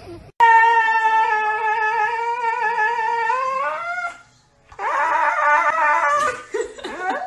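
Husky howling: one long, steady howl that rises in pitch at its end, a short pause, then a rougher, wavering stretch of howling.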